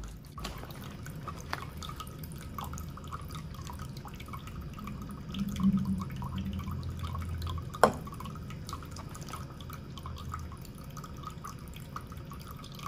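Handmade glazed ceramic three-tier tabletop fountain running: water trickling and bubbling as it drips from tier to tier, a steady patter of small drops. A single sharp knock about eight seconds in.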